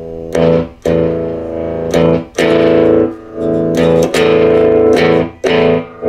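Electric guitar played through an Ampeg R-212R Reverberocket valve amp: a series of about nine strummed chords, each left to ring briefly, with the amp's spring reverb switched on for testing.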